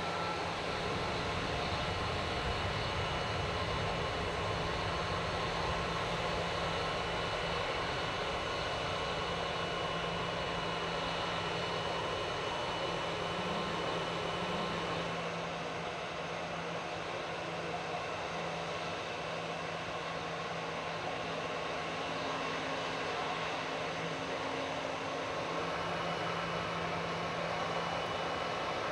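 Airliner jet engines running, a steady rush of noise with a faint high whine and a low hum, easing slightly about halfway through.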